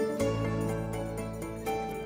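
Instrumental background music with sustained low notes and melody notes entering over them.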